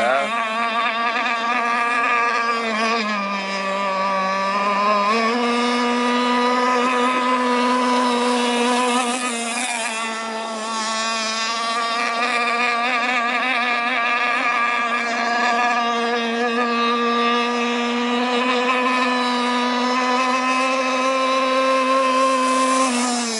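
RC speedboat motor running at high speed on the water, a steady buzzing note that dips in pitch a few seconds in, climbs back and then holds.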